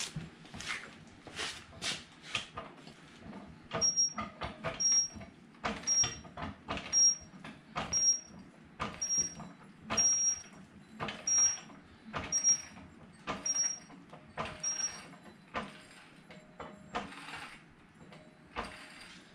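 A few knocks and steps, then a hand ratchet working a lug nut on an ATV wheel: a steady back-and-forth of about one stroke a second for around ten seconds, each stroke a short burst of clicks with a brief high squeak.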